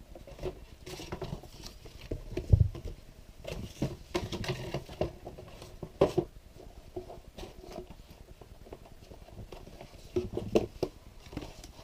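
Paper booklet being handled and leafed through: rustling pages with scattered light taps and knocks, a louder knock about two and a half seconds in.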